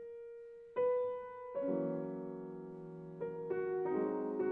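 Background piano music: a single note about a second in, fuller chords from about a second and a half, and a livelier run of repeated notes from about three seconds in.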